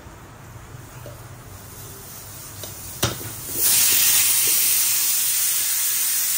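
Stovetop pressure cooker whistling: steam hisses out loudly and evenly under the weight from about three and a half seconds in. This is its second whistle, marking the boil count. Just before it comes a single sharp knock.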